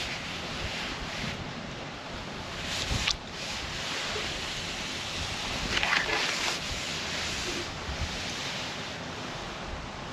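Wind buffeting the microphone, a steady rushing noise, with two brief louder rushes about three and six seconds in.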